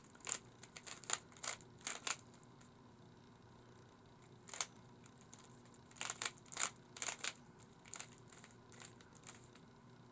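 Plastic Rubik's cube layers being twisted by hand, clicking and rattling in quick runs of turns, with a pause of a couple of seconds in the middle.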